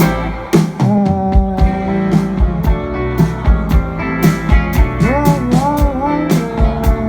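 A live rock band plays a song with a steady drum beat, bass and guitar. A voice hums the melody, rising and falling about five seconds in.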